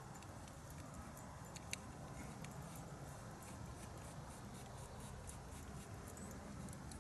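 Faint clicks and light taps of small metal parts being handled as an MSR WhisperLite stove is reassembled, with one sharper click a little under two seconds in.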